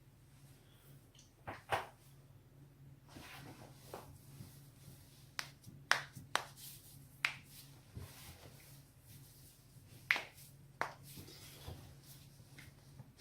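A person's joints cracking: about a dozen sharp pops at irregular spacing, some in quick pairs, the loudest a little after the middle.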